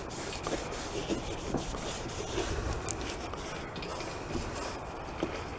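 Wet rag wiping and rubbing over the ribbed plastic air cleaner housing, a soft scrubbing sound with small scattered scuffs.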